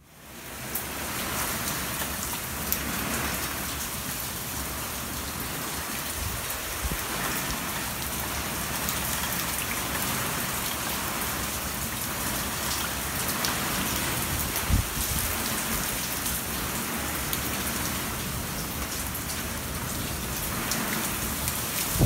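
Heavy typhoon rain in strong wind: a steady, dense hiss of rain with drops clicking on nearby surfaces, fading in at the start. One louder dull knock comes about two-thirds of the way through.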